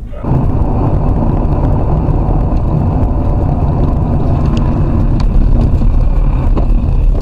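Steady engine and road noise of a car driving on a snowy road, heard from a dashcam inside the cabin.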